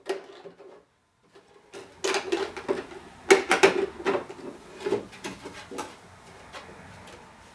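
Thin clear PET plastic sheet crackling and clicking as a shoebox sleeve is folded and pressed into shape by hand. A quiet pause, then a dense run of sharp clicks and crackles about two seconds in that tapers off.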